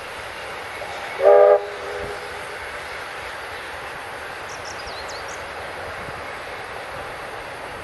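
Steam locomotive whistle giving one short blast about a second in, over the steady sound of the passing steam train.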